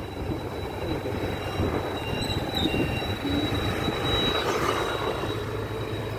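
Street traffic with motor scooters riding past close by, their engines and tyres running over a steady hum of traffic. A thin, steady high whine sounds through the first two-thirds, then stops.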